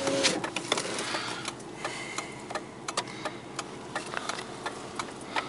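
A car's electric power-window motor whines and stops just after the start. Then comes a run of light, fairly regular ticks, about three a second, inside the car's cabin.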